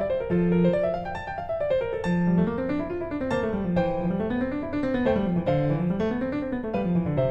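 Background piano music: flowing arpeggios rising and falling over a steady bass.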